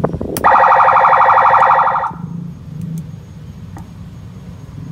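Electronic siren from a Senken ambulance siren module, set off by a button click. It sounds one loud, steady buzzing tone for about a second and a half, then cuts off. A low hum and a faint click follow.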